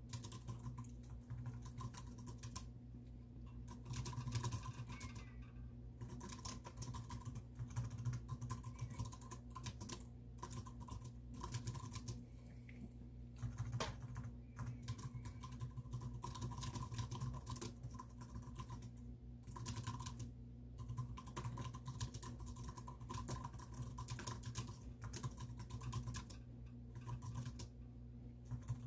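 Typing on a computer keyboard: runs of rapid keystrokes broken by short pauses, over a steady low hum.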